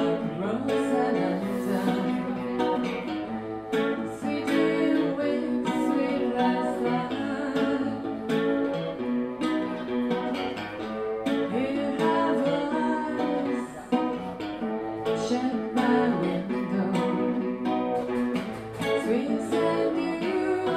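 Live acoustic music: an acoustic guitar played with a voice singing over it.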